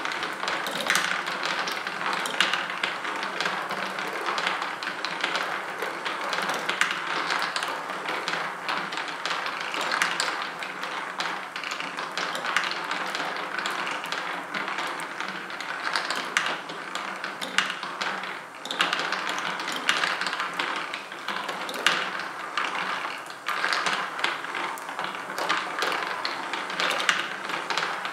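Mini-golf marble machine running: the motorised marble lift working and marbles rolling and clicking through the tracks, a dense, continuous patter of small clicks and taps.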